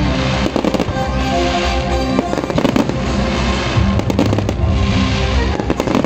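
Fireworks display going off: many quick bangs and crackles in close succession, with music playing under them.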